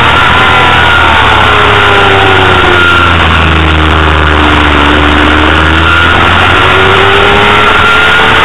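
Honda CBR250RR's inline-four engine, heard onboard over loud rushing wind noise. Its note falls for about five seconds as the rider eases off through a corner, then climbs again as he accelerates out.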